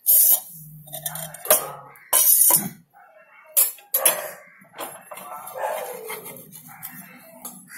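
A dog barking repeatedly, mixed with sharp clatters and scrapes of a metal spatula against the iron griddle pan.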